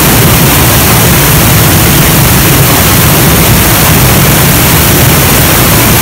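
Waterfall pouring down a rock face close by: a loud, steady rush of water with no let-up.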